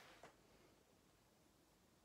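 Near silence: faint room tone, with one faint click in the first moment.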